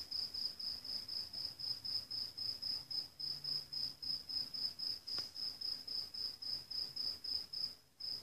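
Cricket chirping steadily, a high pulsed trill at about four chirps a second, breaking off for a moment near the end.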